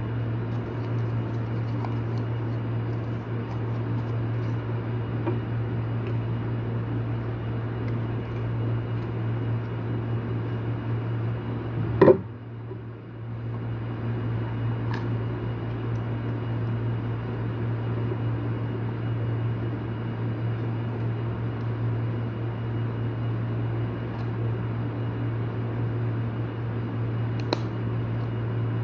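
Steady low machine hum, with a sharp click about twelve seconds in, after which the hum briefly drops before it returns; two fainter clicks follow later.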